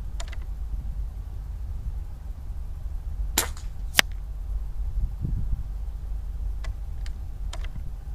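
A .22 calibre Umarex Gauntlet PCP air rifle firing: two sharp cracks a little over half a second apart about three and a half seconds in, the second the sharper. A few faint clicks come later, over a steady low rumble.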